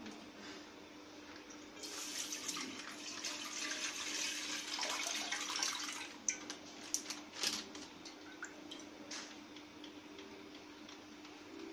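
Half a litre of milk poured from a plastic packet into a pan: a steady splashing stream for about four seconds, then drips and the crinkling of the squeezed-out plastic packet.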